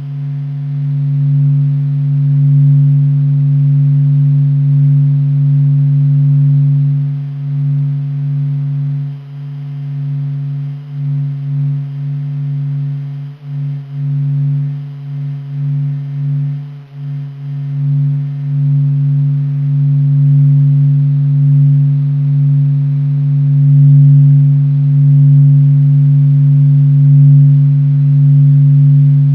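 NASA's sonification of the Sun's vibrations: a steady low hum with a few faint overtones above it, wavering and dipping in loudness for several seconds in the middle.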